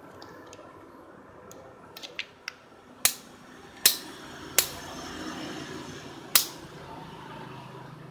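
Rocker on/off switch of a plastic E27 lamp-socket plug adapter clicking: four sharp clicks, the first three about three-quarters of a second apart and the last nearly two seconds later. A few lighter plastic clicks from handling come just before.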